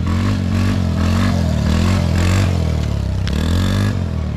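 Yamaha Raptor 90 ATV engine revving up and down in repeated swells about once a second, with a deeper drop in revs about three seconds in.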